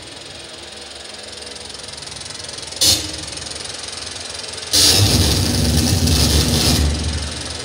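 Live electronic noise music: a hiss that slowly swells, a short blast of noise about three seconds in, then a loud two-second wall of harsh noise with a low rumble under it.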